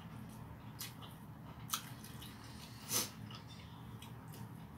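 Eating up close: a person chewing rice and fried chicken eaten by hand, with a few short sharp mouth smacks and clicks, the loudest about three seconds in, over a steady low hum.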